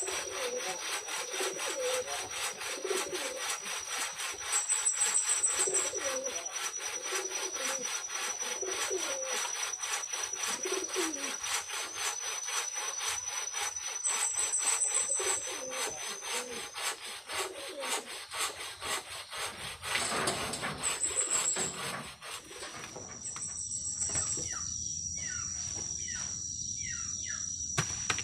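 Hand saw cutting across a wooden pole in quick, even back-and-forth strokes. The sawing stops about 23 seconds in.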